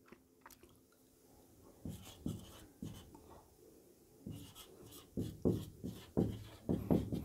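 Whiteboard marker writing on a whiteboard: short squeaking strokes, sparse at first and coming quicker in the last two seconds.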